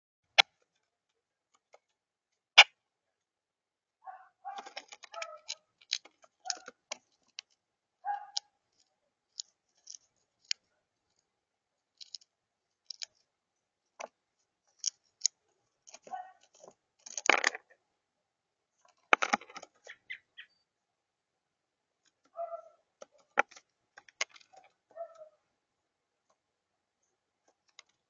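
Grackle's beak pecking at and squashing peanut shells on the feeder table. Sharp clicks and short bursts of crackling crunches come at irregular moments, with quiet gaps between.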